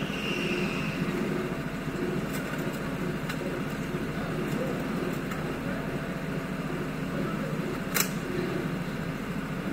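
Go-kart running steadily on the track, a constant motor drone, with one sharp knock about eight seconds in.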